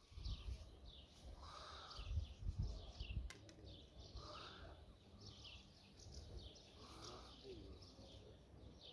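Faint birds chirping over and over, with short falling chirps throughout. A low rumble runs through the first three seconds, and there is one sharp click a little after three seconds in.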